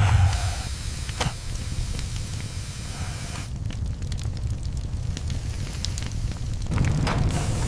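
Fire burning: a steady low rumble with hiss and scattered crackling pops, getting louder about seven seconds in.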